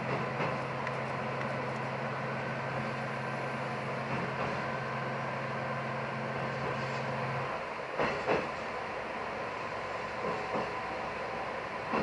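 Diesel railcar running along the track, its engine keeping up a steady low drone that drops away about seven and a half seconds in. After that come pairs of wheel clacks over rail joints, twice, with more just after the end.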